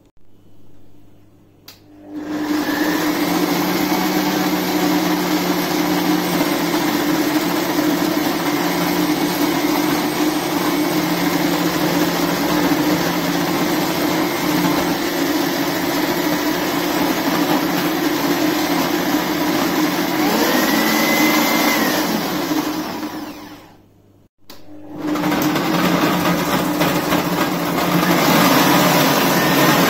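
Kenwood Prospero food processor running with its slicing/grating disc as vegetables are pushed down the feed tube and cut: a loud, steady motor whirr. The pitch rises briefly about two-thirds of the way through. The sound cuts out about three-quarters of the way in and starts again a second later, while a carrot is grated.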